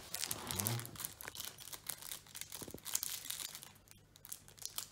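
Foil wrapper of a trading-card pack crinkling and tearing as it is opened by hand, in quiet, intermittent rustles with a brief pause near the end.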